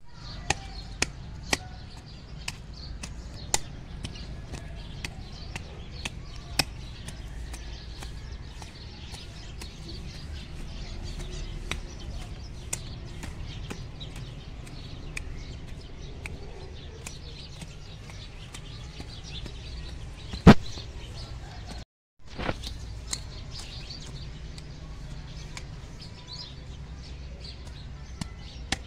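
Hand garden fork working dry soil: scattered sharp clicks and knocks, with one louder knock about two-thirds of the way through. Faint bird chirps and a low steady rumble underneath; the sound drops out for a moment just after the loud knock.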